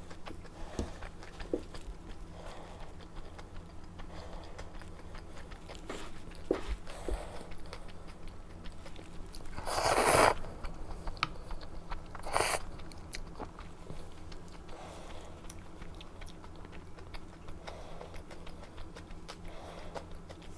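Close-miked chewing and biting of a kimchi dumpling, with small wet mouth clicks. About halfway through comes a louder half-second noisy sound, and a shorter one follows a couple of seconds later.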